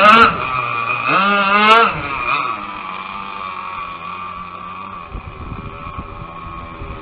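Zenoah 29.5cc two-stroke gas engine of an RC racing boat running at high revs. Its whine swoops up and back down about a second in, then settles to a steadier, quieter note.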